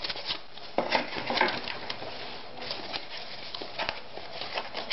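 Thin kraft cardboard packaging being handled: an insert slid out of a small cardboard box and folded in the hands, with irregular scraping, rustling and light taps of cardboard.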